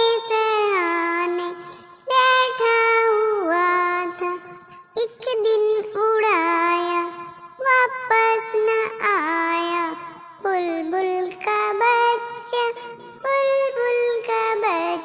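A child singing in short melodic phrases with brief pauses between them, many phrases sliding down in pitch at the end.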